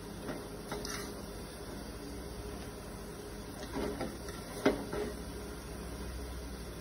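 Handfuls of bean sprouts dropped into a pot of water among banana-blossom pieces: soft rustles and light knocks, with one sharp knock about two-thirds of the way through as the loudest sound, over a steady low hum.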